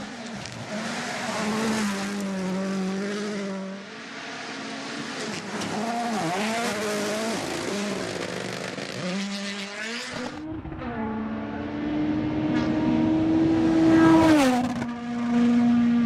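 Rally cars racing flat out on gravel stages, engines revving hard and rising and falling through gear changes. Near the end a car approaches at full throttle, and its engine note drops as it passes.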